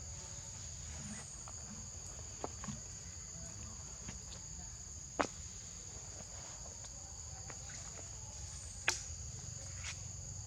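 Insects droning steadily at a high pitch, with a few sharp clicks or snaps, the loudest about five seconds in and near nine seconds.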